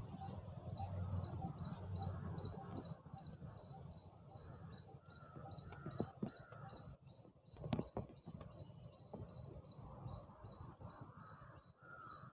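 Faint rustling and squeaking of plastic craft wire being pulled and tightened through knots while weaving a bag, with two sharp clicks about 6 and 8 seconds in.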